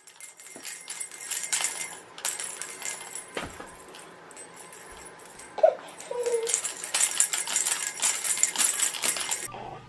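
A baby shaking a plastic ball rattle: a dense, high rattling of small clicks in two spells, with a short pitched coo in between.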